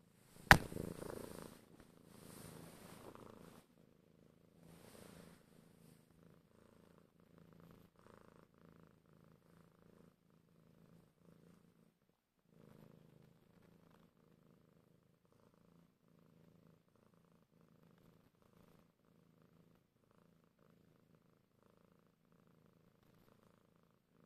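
A domestic cat, tabby and white, purring steadily, in pulses that slowly grow fainter. A sharp click sounds about half a second in, followed by a few seconds of rustling.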